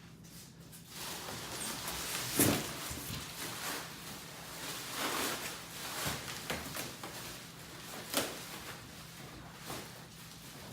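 Scraping and rustling of a cardboard box and its packing as a winch bumper is worked out of it by hand, with a sharp knock about two and a half seconds in and another near eight seconds.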